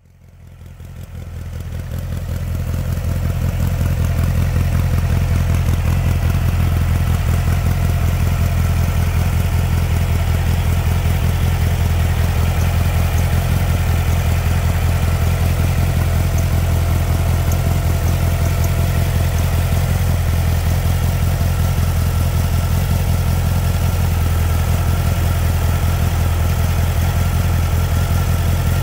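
Turbocharged air-cooled VW Beetle flat-four engine idling steadily at an even speed, fading in over the first few seconds.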